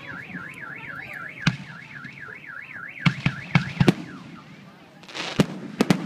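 A car alarm warbles up and down about three times a second and stops about four seconds in, under the sharp bangs of fireworks shells bursting overhead: one bang early, a loud cluster of five around the three-to-four-second mark, and more with some crackle near the end.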